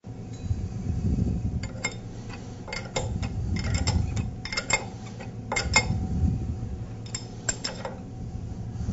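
Open-end wrench clinking against the metal check valve fitting on a waterjet intensifier's end cap as it is fitted and turned: about a dozen short metallic clinks, often in pairs, over a low background rumble.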